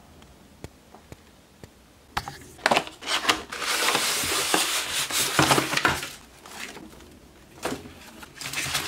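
Unboxing handling of a cardboard track-set box and its plastic Unitrack sections: a few knocks about two seconds in, then a long rubbing scrape of cardboard sliding against cardboard, then light clicks of plastic track pieces being moved in a foam tray near the end.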